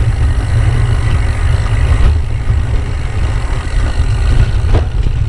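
Gravel bike rolling fast down a dirt single-track trail: a steady, heavy rumble of wind buffeting the camera's microphone over the tyres' rolling noise, with a couple of sharp knocks from the bike near the end.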